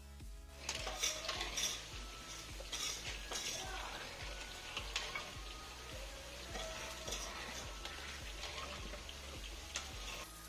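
Malai kaja dough balls deep-frying in a large metal kadai of oil, with a steady sizzle that sets in about a second in. A metal skimmer scrapes and clinks against the pan as the balls are stirred and lifted.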